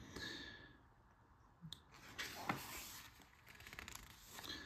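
A page of a softcover rulebook being turned by hand: faint paper rustling and sliding, with a short tick and a slightly louder rustle about two seconds in.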